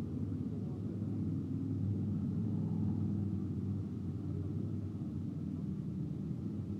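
Dirt late model race cars lapping a dirt oval. Their V8 engines run as a steady low rumble that swells slightly a couple of seconds in, then eases off.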